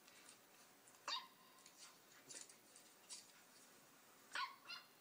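Puppy yipping: several short, high yips about a second apart, two of them close together near the end.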